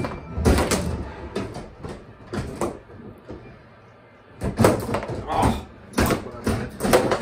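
Bubble hockey table in play: rapid clacks and knocks as the players' control rods are worked and the puck strikes the figures and boards under the dome. The knocking comes in bursts, with a brief lull a little after the middle.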